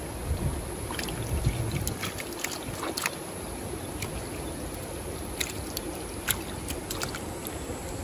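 Creek water running with a steady rush, with a few light clicks and taps scattered through.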